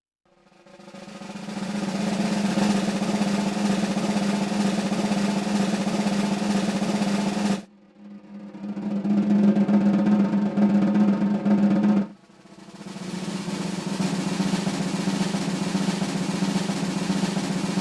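Drum rolls: three long sustained rolls, each swelling up from quiet over a second or two. The first stops suddenly about seven and a half seconds in, the second about twelve seconds in, and the third is still going at the end.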